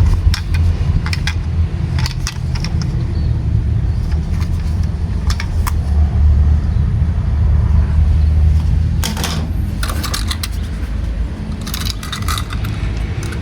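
Toy cars being handled, with scattered light clicks and clatters, a cluster about nine seconds in and another near the end, over a steady low rumble.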